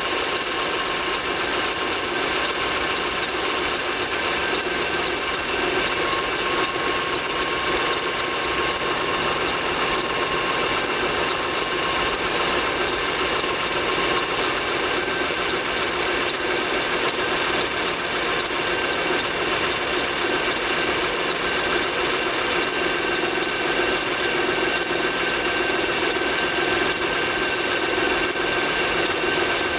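Honda Pilot's 3.5-litre V6 running cold with a rapid, steady knocking that does not let up. This knock is heard only on a cold engine and goes away once the engine is warm.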